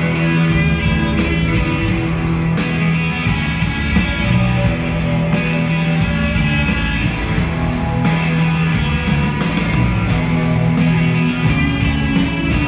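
Live rock band playing at full volume: electric guitars holding sustained chords over bass and a steady drumbeat, heard from the audience in a large arena.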